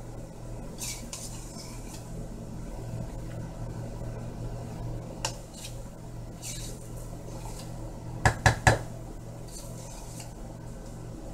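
Kitchen dishes and utensils being handled: light scrapes and clinks, then three quick, sharp knocks a little past the middle, over a steady low hum.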